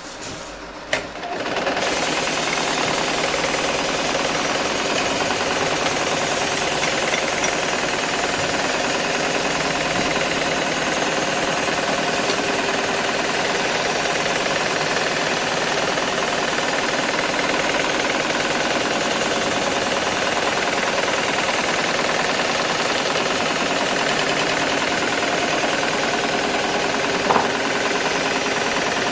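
HighTex 7273CNC heavy-duty programmable sewing machine running steadily as it stitches thick synthetic webbing for lifting slings. It starts about a second and a half in after a click, and there is one sharp knock near the end.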